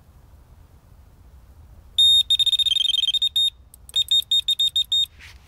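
Delkim electronic carp bite alarm sounding a run: a high beep held briefly, then a fast stream of beeps, a short pause, and a second fast burst of beeps, signalling a fish taking line off the reel.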